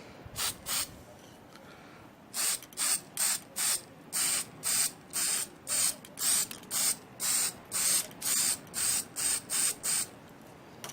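Aerosol spray-paint can (rattle can) spraying in short hissing bursts: two at first, then, from about two seconds in, a steady run of about two bursts a second as the first coat of paint goes onto a toy truck's metal body.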